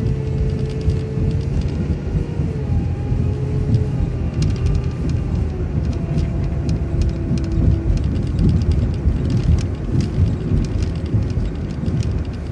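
City transit bus heard from inside while driving: steady engine and road rumble, a faint whine that drifts slowly in pitch, and frequent small rattles and clicks from the cabin.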